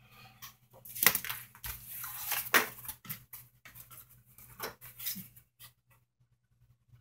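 Sheets of corrugated cardboard and paper being picked up and slid across a tabletop: rustling and scraping with several sharp knocks, loudest about a second in and again near two and a half seconds, over a faint steady low hum.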